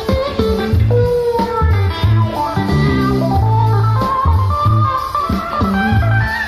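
Live jazz-fusion band playing: a repeating deep electric bass line and drums under a lead melody line that bends in pitch.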